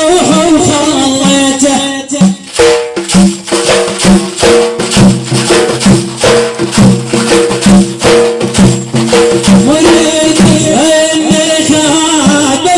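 Music: a melody of held tones over shaken, rattle-like percussion that plays a steady beat through the middle, fading back to the melody alone near the end.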